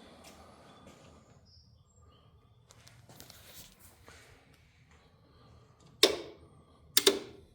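Two sharp clicks about a second apart near the end, the second one doubled, from an EG4 battery being switched on by its BMS on button; the battery fails to power up normally and its BMS keeps cycling on and off. Faint rustling comes before the clicks.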